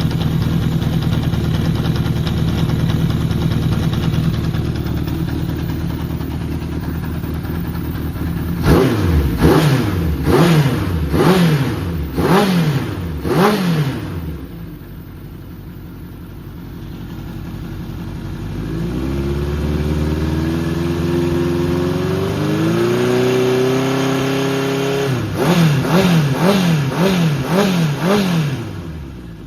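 Honda CB750F (RC04) air-cooled inline-four engine running: a steady idle, then five quick throttle blips, a dip, a slow climb to a held fast idle, and four more quick blips before settling back. A working engine that the seller describes as free of abnormal noise.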